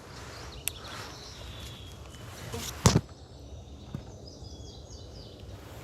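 Outdoor forest ambience with a single sharp snap or knock about three seconds in, followed by a songbird singing a quick series of short high notes.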